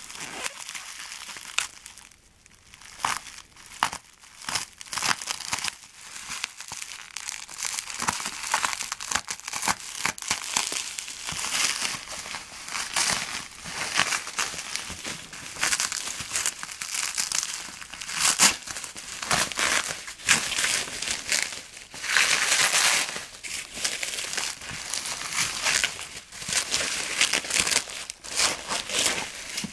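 Plastic packaging being handled and pulled apart, crinkling in dense irregular crackles with a brief quieter spell near the start.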